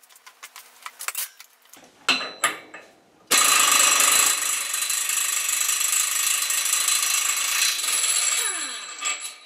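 A few clicks of handling, then a Mighty 7 compact half-inch-drive air impact wrench hammering loudly for about five seconds at about 90 PSI working pressure, breaking loose a nut torqued to about 510 ft-lb. It winds down with a falling pitch near the end.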